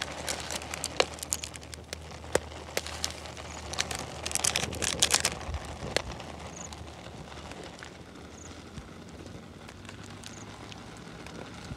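Wood fire crackling under the pan, with the crinkle of plastic seasoning sachets being handled and squeezed. The sharp crackles are thickest in the first half and thin out after about six seconds.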